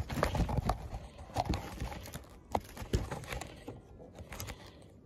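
Handling noise from a phone camera being moved about at ground level on stony soil: scattered knocks and scuffs, thinning out after about three seconds.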